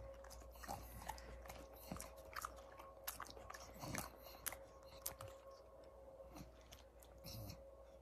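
A bulldog chewing and working its mouth: faint, irregular crunches and clicks, over a faint steady hum.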